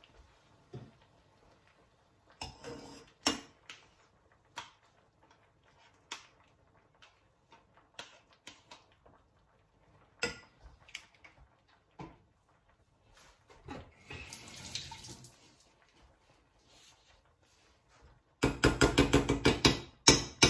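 A spoon scrapes yogurt out of a plastic tub into a saucepan, with scattered light taps and knocks. Near the end the spoon stirs quickly in the saucepan, clinking against it about seven times a second for about two seconds; this is the loudest part.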